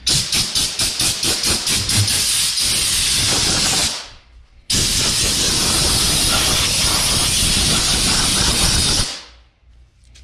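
Compressed air hissing from a long-wand air blow gun in two long blasts, blowing lint off a truck grille. The first, about four seconds long, pulses rapidly at first; after a short pause the second runs steady for about four and a half seconds, then tails off.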